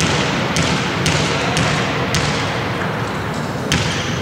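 A volleyball bouncing on the hardwood court about twice a second, as the server dribbles it before serving, over the steady noise of a large sports hall.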